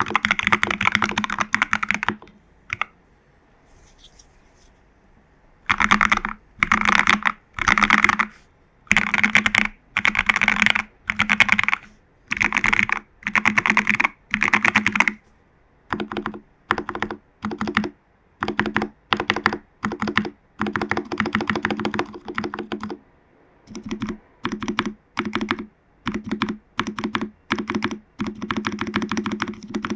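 Typing on a mechanical keyboard in a TU40 plastic case, with lubed Jelly Black switches and case foam, PCB foam and tape mod: rapid keystroke clicks in short bursts. A pause of about three seconds comes near the start, then the bursts follow roughly once a second.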